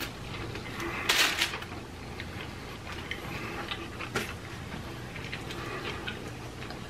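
Quiet eating sounds from two people chewing tacos and burritos, with small handling noises of food and wrappers on the table: a short noisy burst about a second in and a sharp click about four seconds in, over a steady low room hum.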